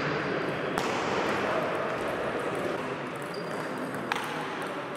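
Table tennis ball clicking off bats and table during a rally: a few sharp clicks, clearest about a second in and again near the end, over steady background noise of the hall.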